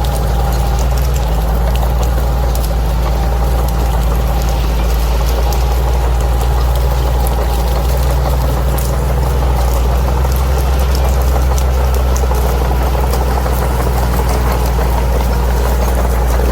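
Bulldozer's diesel engine running steadily, a deep, even drone with faint clicks over it.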